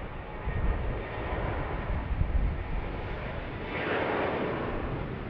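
Boeing 737-800's CFM56-7B turbofan engines at takeoff thrust as the jet rolls down the runway: a steady rushing jet noise. Uneven low rumbling sits under it in the first half, and the middle of the sound swells about four seconds in.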